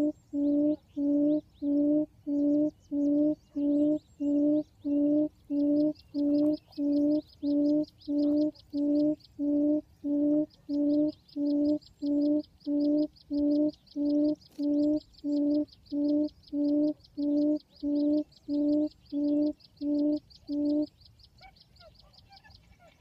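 Recorded quail call played through a phone's speaker as a lure beside a trap. A low hooting note repeats evenly about twice a second, then cuts off abruptly near the end.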